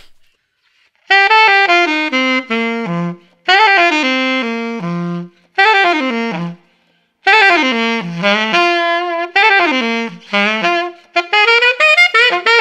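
Solo alto saxophone playing a blues lick in short phrases, about five of them with brief gaps between, each starting high and running quickly down in pitch.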